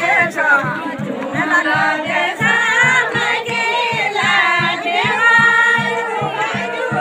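A group of voices singing a Kumaoni jhora folk song together, with a steady low beat underneath.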